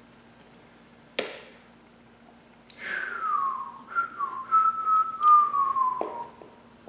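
A man whistling one long, wavering note that slides downward, after a single sharp click about a second in.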